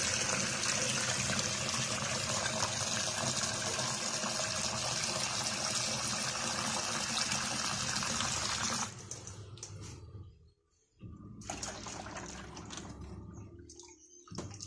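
Tap water running in a steady stream into a half-full plastic bucket, splashing, until it stops abruptly about nine seconds in. Quieter splashing follows, and near the end water is poured from the bucket.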